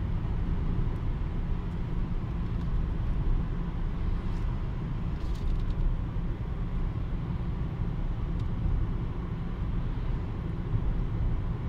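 Steady engine and tyre noise of a car driving along an open road at speed, heard from inside the cabin as a constant low rumble.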